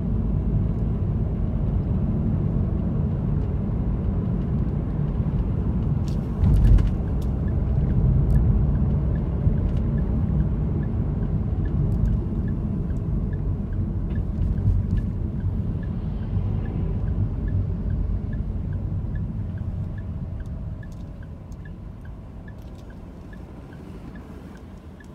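A car driving, with a steady low rumble of engine and road noise. There is a thump about six seconds in, and a faint regular ticking at about two a second from then on. The sound fades out near the end.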